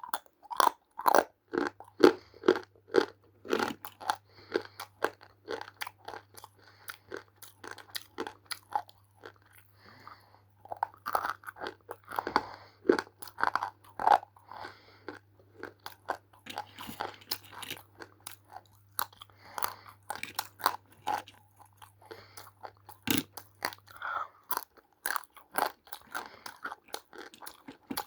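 Close-up biting and chewing of crunchy roasted Multani mitti (baked fuller's earth clay): dense, irregular crunches and crackles, several a second, with a faint steady low hum beneath.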